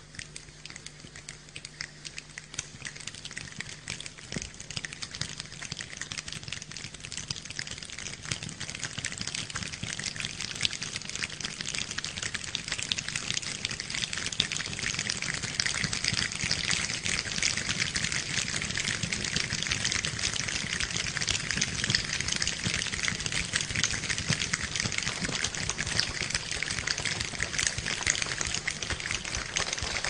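Audience applause, a dense patter of many hands clapping, growing louder over the first ten seconds or so and then holding steady.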